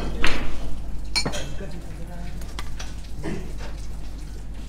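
Cutlery and dishes clinking close to the microphone as people eat, with a clatter near the start and a sharp clink about a second in, then smaller scattered clinks.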